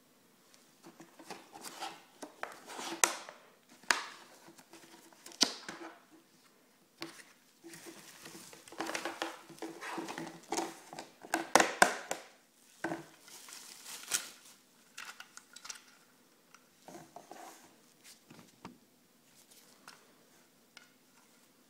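Stiff clear-plastic blister packaging of a baggage scale being crinkled, pried and torn open by gloved hands, with irregular crackles and sharp snaps. The noise thins to quieter, scattered rustles and clicks in the last third.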